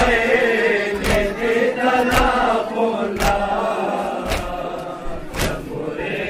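Crowd of men chanting a mourning lament in unison, with a group thump about once a second, the rhythmic chest-beating (matam) of Shia mourners.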